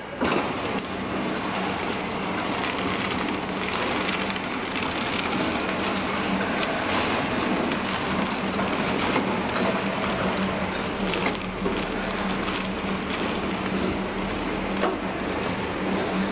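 Soap-bar flow-wrap packing machine running: a steady mechanical clatter with scattered light clicks, over a low hum and a thin high whine.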